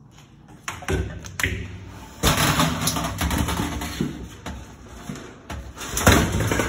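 A run of thumps and taps with scuffing, rustling noise. It is loudest a little over two seconds in and again near the end. This is handling and movement noise as a phone camera is carried close past stainless steel equipment.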